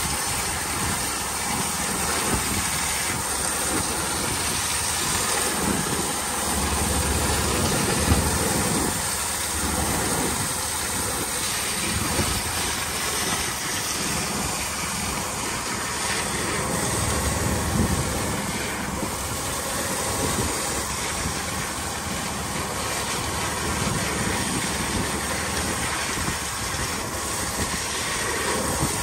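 Sponge boat's engine running steadily with a low pulsing rumble, under a constant rushing hiss.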